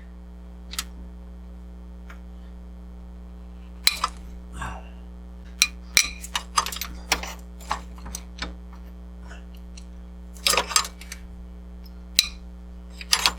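Scattered metallic clinks and clanks of hand tools and engine parts being handled during an engine teardown, over a steady low hum.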